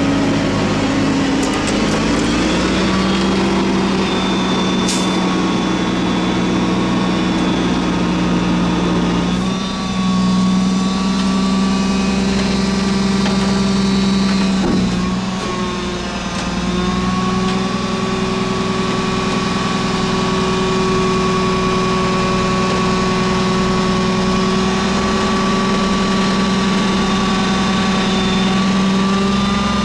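Mack MR garbage truck's diesel engine running at raised revs while the McNeilus front-loader forks lift a dumpster. It is a steady drone that steps up in pitch about two seconds in, dips briefly around halfway, then holds steady.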